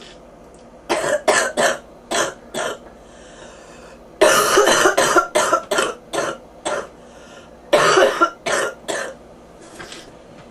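A person with bronchitis coughing in fits: a few quick coughs, then a longer run of many coughs in a row about four seconds in, and another run a few seconds later, fading to fainter coughs near the end.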